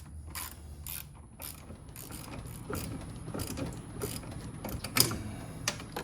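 Ratchet wrench clicking in short strokes, about two clicks a second, as a battery terminal clamp nut is worked on, with one sharper click about five seconds in.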